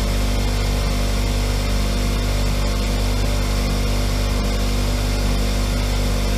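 Power grinder running steadily, grinding down a steel spanner to make it thin enough to reach a fastener.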